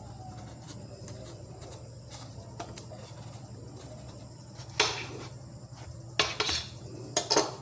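Kitchen knife cutting a gourd in half, with a few sharp knocks of the blade on the cutting surface: one about five seconds in, then two more in quick succession near the end. A low steady hum runs underneath.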